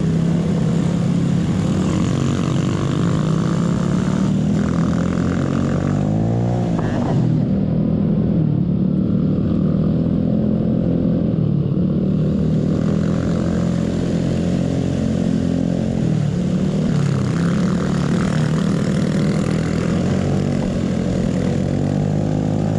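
Vespa automatic scooter's engine, built to the 63 mm big-bore spec and still being run in, running under way. Its pitch rises and falls in a quick rev about six to seven seconds in and climbs again near the end.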